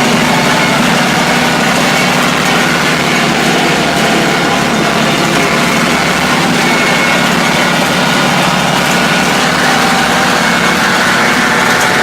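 Bulldozer's diesel engine running steadily and loudly, with no change in speed.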